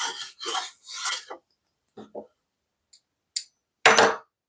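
Wooden round-over hand plane being handled: three short rasping rubs in the first second and a half, a few light clicks, then a louder scrape near the end.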